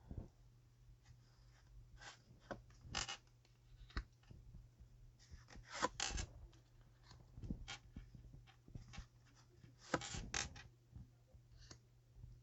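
Tarot cards being handled: short papery slides, rustles and taps as cards are drawn and laid out, with a faint steady low hum underneath.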